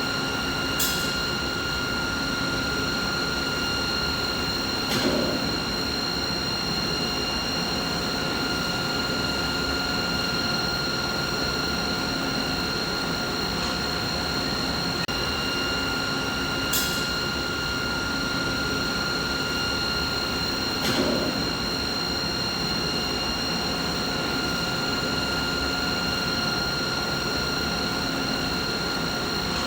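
Continuous machine noise: an even mechanical hum with several steady high tones running through it. Faint clicks come about a second in and again about sixteen seconds later, and small knocks about five and twenty-one seconds in.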